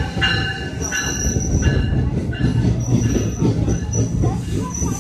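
NJ Transit passenger coaches rolling slowly past close by, a heavy rumble of wheels on rail with a high squeal that comes and goes in short stretches as the train slows into the station.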